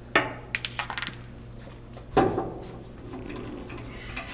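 Metal-on-metal clinks from a nut and wrench being worked onto a hood guide bolt: a sharp clink, a quick run of small ticks, then a louder knock with a short ring about two seconds in.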